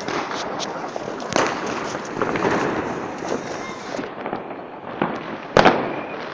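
New Year's Eve fireworks and firecrackers going off: many sharp bangs and crackles, with the loudest bang near the end.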